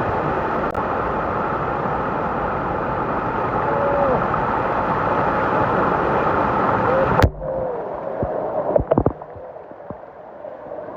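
Waterfall: a steady rush of falling water that cuts off abruptly about seven seconds in, giving way to quieter water with a few splashes and gurgles.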